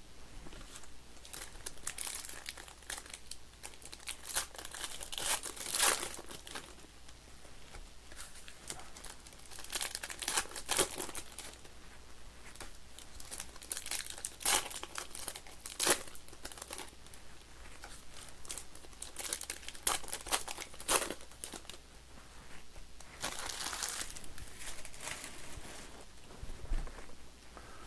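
Foil wrappers of trading card packs crinkling and tearing as the packs are ripped open and handled, in irregular crackles and rustles.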